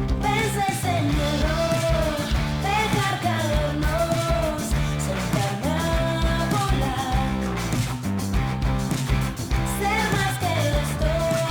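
Rock band playing with a female lead vocal: a sung melody over guitars, bass and drums.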